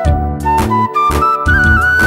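Background music: a melody stepping upward over low bass notes, with a drum beat about every half second.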